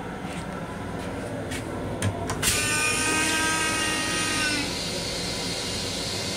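Train restroom toilet flushing: a couple of clicks about two seconds in, then a sudden rush of air and water with a steady whine of several tones that stops about two seconds later, leaving a steady hiss. Under it runs the low rumble of the rail car.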